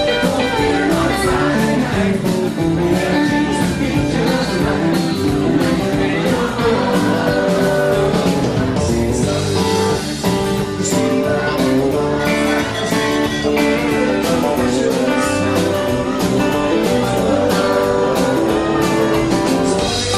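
Live country band playing a song, with acoustic guitar over a steady drum beat, amplified through a bar's PA.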